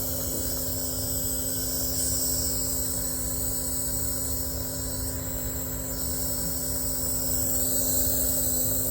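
Penguin-shaped nebulizer compressor running: a steady motor hum with a hiss of air over it.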